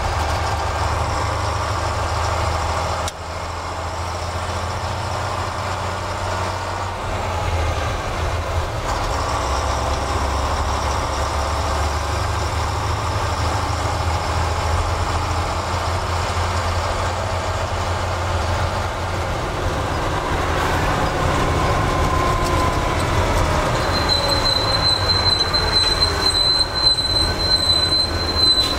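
Inside the cab of a 1977 Volvo F88 lorry on the move: its diesel engine running with road noise, the engine note dipping and rising several times. In the last few seconds a steady high-pitched whine sits above it.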